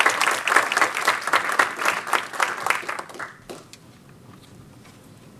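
Audience applauding a speaker's introduction. The clapping dies away about three seconds in and leaves quiet room noise.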